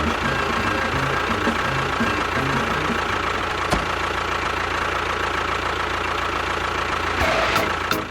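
A small engine running steadily, with a single sharp click about four seconds in.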